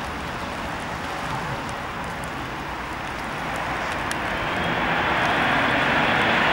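Bombardier CRJ-200's twin turbofan engines approaching: a rushing jet noise that grows louder from about halfway through, with a high steady whine coming in near the end.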